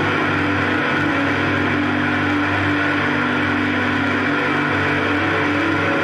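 Steady, unbroken drone music: several held tones layered over a dense wash, with no attack, rhythm or change in level.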